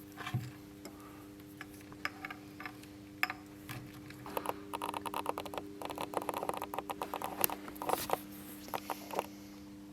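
Rapid small clicks, ticks and scratches of hands and a tool working at the plastic housing and wiring of a motorcycle headlight unit, densest in the middle, over a steady low hum.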